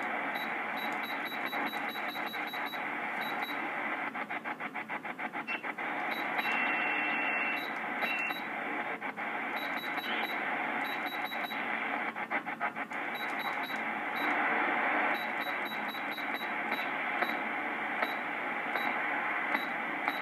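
Galaxy DX2527 CB radio's receiver static and hiss from its speaker as the channel selector is turned down through the 27 MHz band. Short high beeps come in quick runs, and the static flutters in rapid pulses several times.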